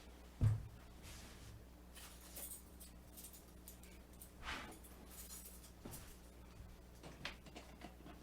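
A dull thump about half a second in, then faint rustling and light knocks as objects are handled and set down, over a steady low electrical hum.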